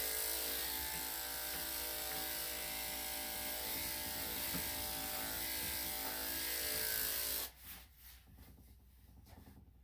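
Electric dog grooming clippers fitted with a #3 3/4 blade running steadily, then switched off about seven and a half seconds in.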